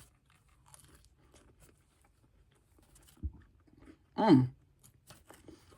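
Person biting into and chewing a McDonald's apple pie: faint crunching and small crackles of the pastry. A short voice sound falls in pitch about four seconds in.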